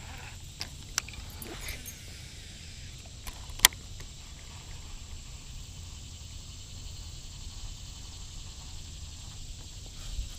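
Outdoor ambience on the water: a steady low rumbling background with a thin, steady high insect-like drone. A few light clicks come in the first two seconds, and one sharp loud click about three and a half seconds in.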